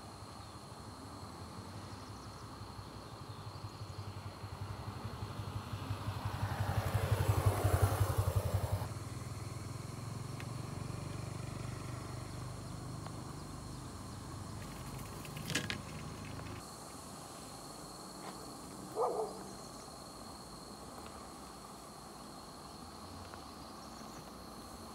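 A motor vehicle passing, its engine growing louder over several seconds and then dropping away suddenly about nine seconds in, with a fainter rumble that fades out later. A single sharp click comes about fifteen seconds in.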